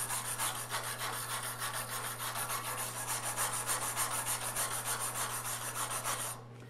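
Stainless steel wire brush scrubbing back and forth in rapid, even strokes across a TIG weld on a flat metal bar, cleaning surface contamination off the back side of the weld; the brushing stops shortly before the end.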